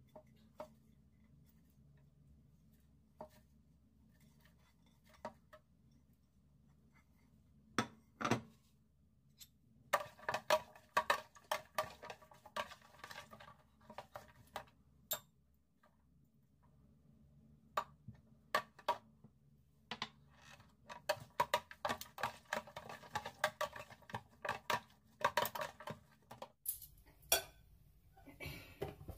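Metal spoon tossing sliced vegetables and dressing in a plastic bowl: scattered single taps at first, then quick runs of clinking and scraping about a third of the way in and again through the last third.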